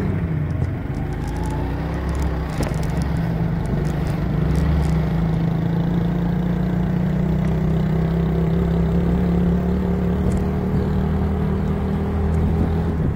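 Engine of a small road vehicle running at a steady pitch while riding along, with a low rumble underneath.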